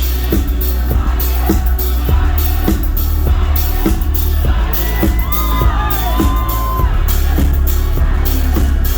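Live indie-pop band playing: a steady drum beat over heavy bass. Around the middle, a few high voices slide up and down over the music.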